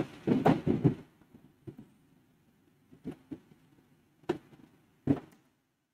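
Computer keyboard and mouse clicks: a handful of single sharp clicks spaced about a second apart, as a distance is typed in and confirmed in CAD software.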